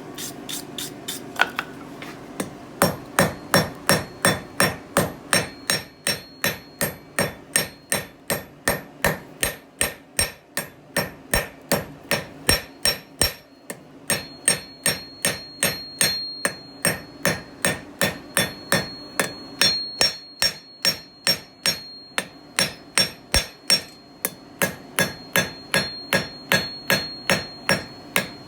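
Blacksmith's hand hammer striking hot steel on an anvil in a steady rhythm, about two to three blows a second, with the anvil's high ring carrying between blows. This is the smith drawing a taper to thin the striking edge of a fire steel. A few lighter taps come first, before the steady hammering starts.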